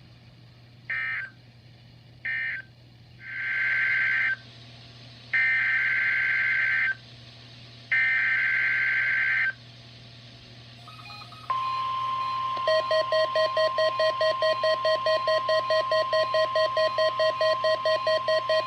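NOAA Weather Radio SAME data bursts: two short screeching bursts, then three longer ones. They are followed by the steady 1050 Hz Warning Alarm Tone, the signal that sets off alert receivers. About a second after the tone starts, a lower beep pulsing about four times a second joins it, typical of a weather radio receiver sounding its alarm.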